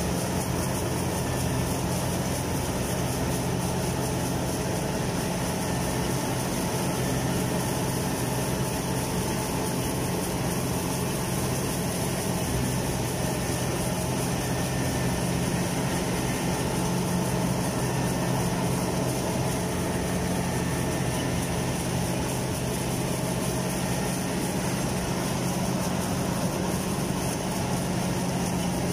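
Kubota rice combine harvester's diesel engine running steadily at a constant speed, a low, even drone that does not change.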